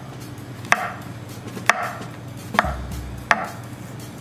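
Chef's knife slicing button mushrooms on a wooden cutting board: four sharp strikes of the blade on the board, about one a second.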